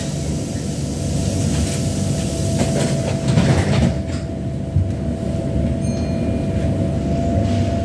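Tyne and Wear Metrocar heard from inside the car as it sets off from the platform: a steady low rumble under a steady whine, with a louder stretch of rattling about three seconds in.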